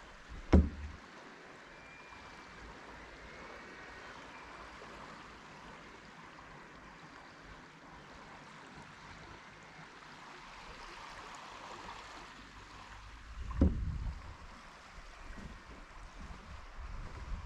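Steady soft wash of calm sea water with light wind. Two sudden low thumps, one about half a second in and a louder one near the end, followed by uneven low rumbling of wind on the microphone.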